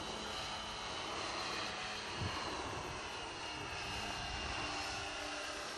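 Multiplex Cargo RC model airplane in flight: the steady high whine of its motor and propeller, with a brief low bump about two seconds in.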